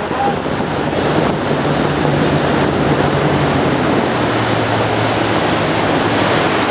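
Motorboat running at speed: the rush of its churning wake and wind buffeting the microphone, over a low steady engine hum.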